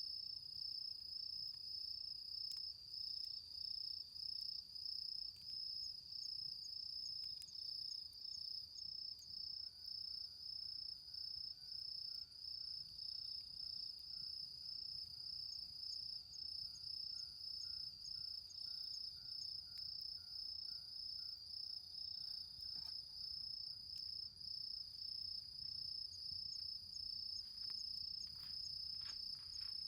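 Autumn crickets trilling steadily in a high, continuous chorus that pulses at an even rhythm. A few faint crackles, likely from the smouldering embers, come near the end.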